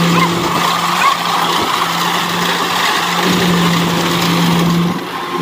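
Kubota DC70 combine harvester working through ripe rice, its diesel engine running under load with a steady drone over a continuous hiss from the cutting and threshing machinery.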